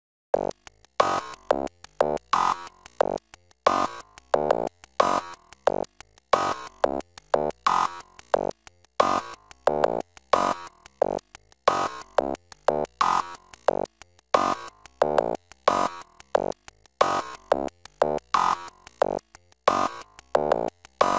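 Electronic background music: a steady beat of short, plucked synthesizer notes, with a stronger hit about every second and a third. It starts just after a brief silence and stops abruptly at the end.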